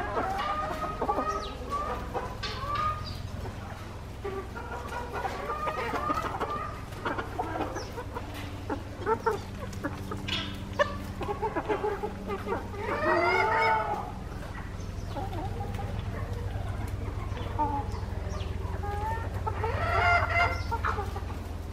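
A flock of chickens clucking, with several louder drawn-out calls spread through, over a low steady hum.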